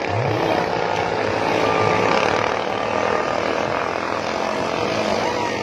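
Ketinting longtail racing boat engines running steadily at speed, a dense, even engine noise.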